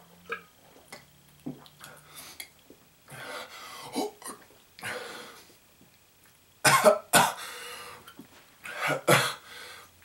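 A man's last few swallows, then harsh coughing, gasping and throat clearing, the loudest coughs a little past halfway. It is a throat burned by a pint of apple cider vinegar downed in one go.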